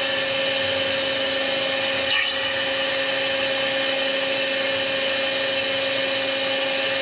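Hydraulic pump unit running with a steady whine over a constant hiss.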